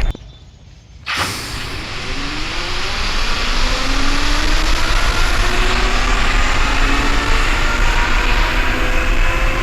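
A vehicle engine running under loud, steady noise, its pitch rising slowly as it speeds up. The sound drops away abruptly for about a second at the start, then comes back.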